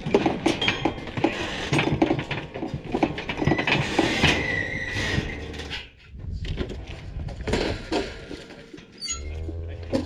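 Clanks and rattles of a steel cattle squeeze chute and its gates, many sharp knocks in a row, while cattle are worked through it.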